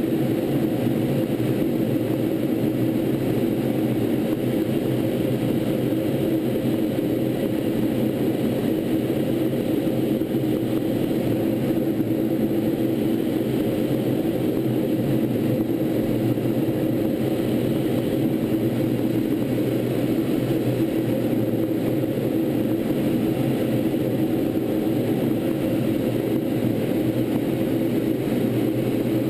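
T-38 Talon jet's engine and airflow noise in steady flight, heard from aboard the aircraft: an even, unchanging roar with a few steady low hums in it.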